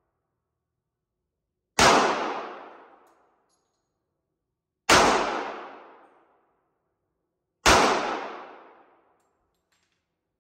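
Three single gunshots, about three seconds apart, each a sharp crack that rings off into a long, fading echo.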